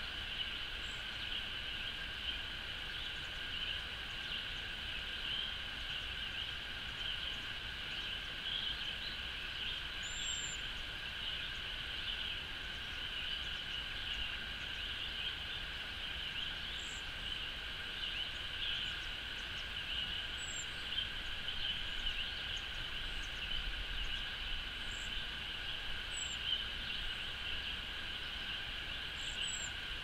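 A steady, high-pitched outdoor chorus of calling animals runs without a break. Faint, very high, thin bird calls cut through it about seven times.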